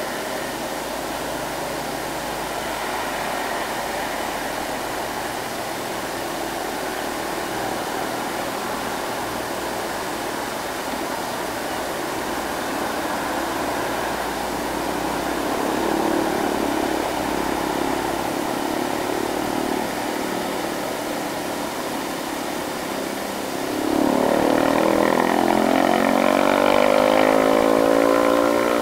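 Road traffic on a steep bend: engines of loaded trucks running under load as they climb, with motorcycles passing. Near the end a closer engine revs up loudly, rising in pitch for several seconds.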